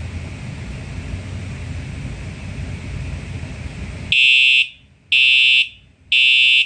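A steady rushing noise, then, about four seconds in, a fire alarm horn strobe starts sounding high-pitched beeps of about half a second, one a second. In walk test the horn pulses out the point number of the smoke detector just set off, here detector 4.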